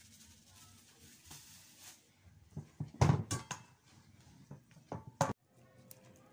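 Thumps and knocks from dough being kneaded by hand on a countertop: faint handling at first, then a cluster of loud thumps about three seconds in and two more sharp knocks near five seconds, after which the sound cuts off abruptly.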